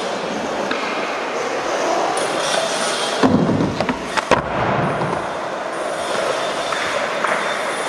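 Skateboard wheels rolling on a concrete floor with a steady grinding hum. A skateboard hits the ground with a sharp clack about three seconds in, and again a second later.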